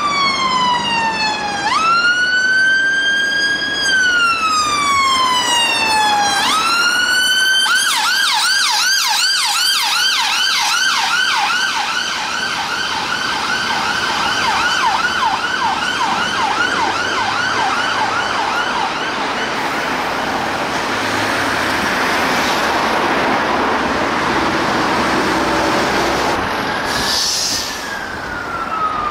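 Electronic siren of an emergency vehicle on a call: a slow rising and falling wail that switches about eight seconds in to a fast yelp, several sweeps a second, for about ten seconds. The siren then gives way to road noise, and the wail comes back near the end.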